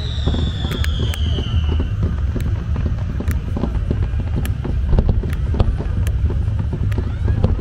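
Fireworks display: rapid bangs and crackles over a steady low rumble, with a descending whistle during the first two seconds.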